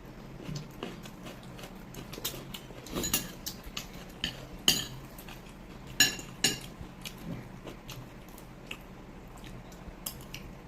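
Cutlery clinking and scraping against plates and bowls during a meal: scattered light taps, with a few louder, ringing clinks near the middle.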